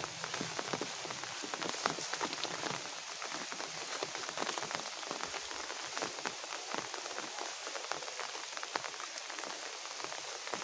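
Rain falling steadily, with many separate drops striking nearby surfaces.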